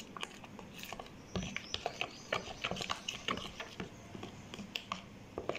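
A hand mixing spice-laden yogurt marinade in a plastic tub: irregular soft squelches and pats, several a second, as the fingers work through the mixture.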